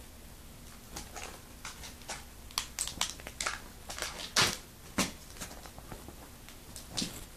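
Plastic packaging crinkling and rustling in short irregular bursts as component cables are unwrapped, the loudest crackle about four and a half seconds in.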